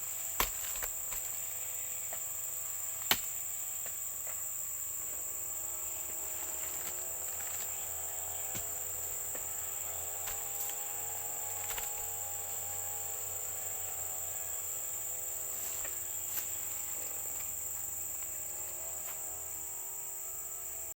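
Steady, high-pitched chorus of insects, crickets or cicadas, with a faint droning hum that wavers up and down in pitch through the middle, and a few sharp clicks.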